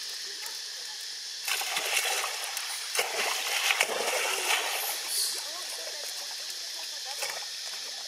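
Water splashing and sloshing as a monkey swims in a shallow pool. A louder run of quick, irregular splashes starts about one and a half seconds in and dies down again about five seconds in.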